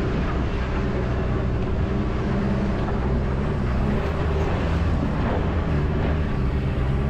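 Four-wheel-drive vehicle driving, its engine running at a steady pitch over tyre and road noise.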